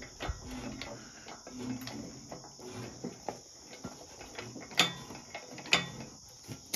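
Hydraulic engine hoist being pumped to lift an engine on a chain: faint creaks and clicks, with two sharper metallic clicks about a second apart near the end.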